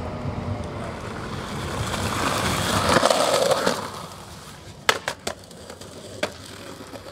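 Skateboard wheels rolling over rough ground, the rumble swelling as the board comes closer and then dropping away. After that come a few sharp clacks of the board against a concrete ledge, three close together and one a second later.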